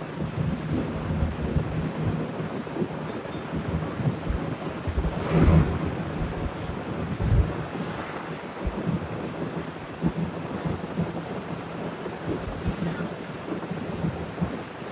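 Interior of a moving shuttle bus: steady engine and road rumble with a low hum, a few louder bumps, and wind on the microphone.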